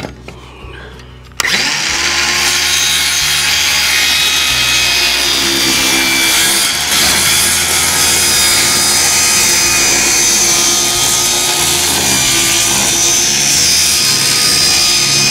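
Circular saw starting up about a second and a half in, spinning up and then cutting steadily through a sheet of plywood, running loud until it stops near the end.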